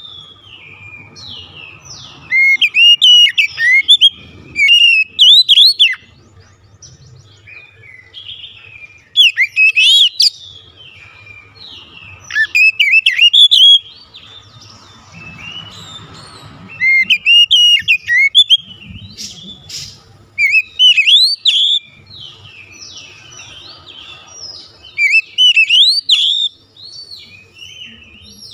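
Oriental magpie-robin singing loud, varied whistled phrases of rising and falling notes. The song comes in bursts of one to two seconds with short pauses between, about seven times.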